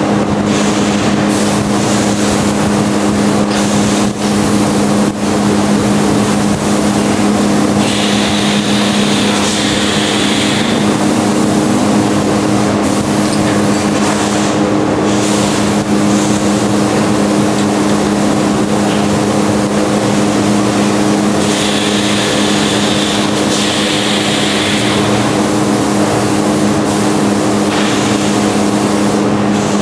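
Steady mechanical drone from running machinery, a constant low hum under a noisy rush, with a brighter hiss swelling over it twice, about a third of the way in and again after two-thirds.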